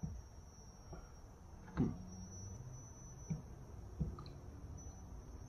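Quiet room tone with a faint steady high whine and a few soft knocks and clicks, the loudest about two seconds in, from handling a can and a plastic mixing cup while a thin stream of additive is poured into black single-stage paint.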